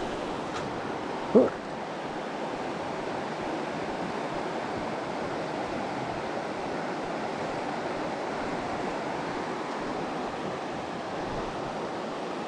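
Steady rush of a fast-flowing river in flood. One brief loud sound cuts in about a second and a half in.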